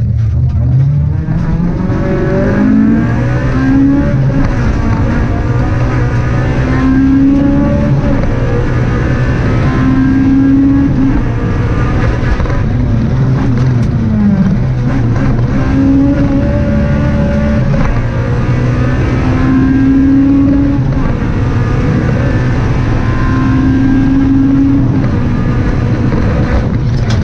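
Honda Civic Type R rally car's engine heard from inside the cabin, driven hard at stage speed. Its note climbs repeatedly and drops back every few seconds as it accelerates, changes gear and lifts for corners, over constant tyre and road noise.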